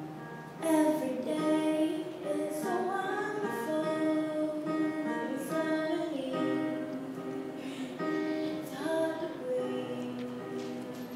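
A girl singing a solo song over instrumental accompaniment. Her voice comes in under a second in and holds long notes with a wavering vibrato.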